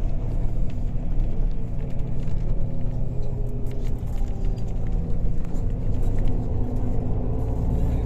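Steady low rumble of a road vehicle driving, heard from inside the cabin: engine and road noise with no clear changes.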